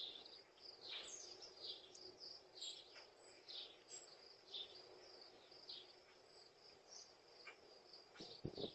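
Faint outdoor ambience: small birds chirping on and off over a steady high insect trill. A few short low thuds come near the end.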